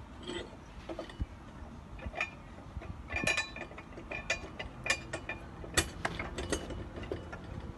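Irregular metal clanks and clicks from a tire being worked on a manual tire changer, a few of them with a short metallic ring; the loudest come in the middle and about six seconds in.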